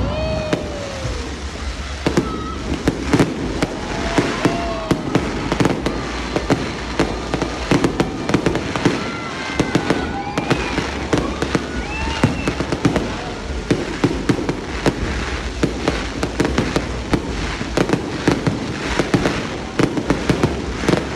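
Fireworks display: a dense, continuous barrage of bangs and crackling bursts, many per second without a break.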